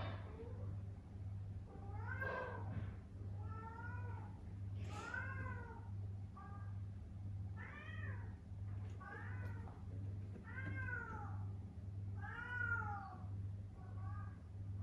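Domestic cat meowing over and over, about nine drawn-out calls, each rising and then falling in pitch, a second or so apart.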